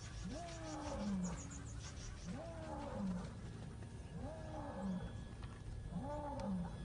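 Distant male lion roaring: four deep calls about two seconds apart, each rising and then falling in pitch and trailing off lower. It is a territorial roar proclaiming ownership of the female.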